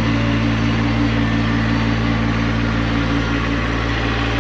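Compact loader tractor's engine running steadily at idle, an even low hum with a fast pulse.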